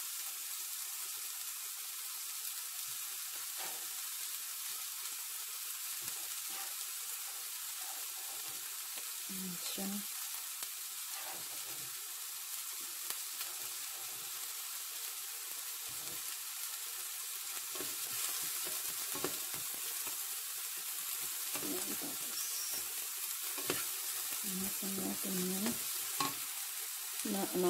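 Diced potatoes and chopped onion sizzling steadily in hot oil in a nonstick frying pan. Near the end a wooden spatula stirs them.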